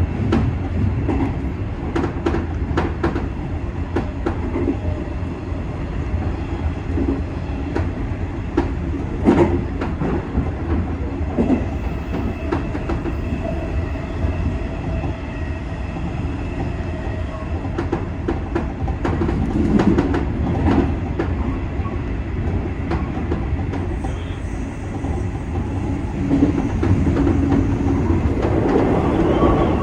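JNR 201 series electric train running at speed, heard from the driver's cab: a steady rumble, with the clicks of wheels crossing rail joints at uneven intervals.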